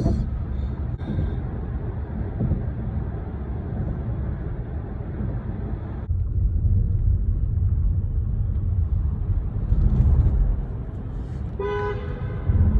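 Steady road rumble of a car being driven. About six seconds in, the higher hiss falls away and the low rumble grows heavier. Near the end a car horn sounds once for about a second.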